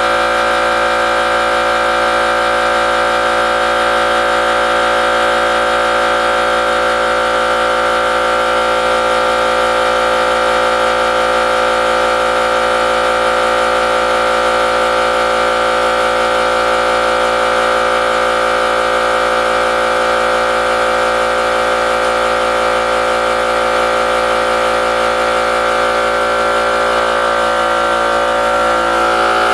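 A loud, steady mechanical drone with a strong high whine that holds one unchanging pitch throughout.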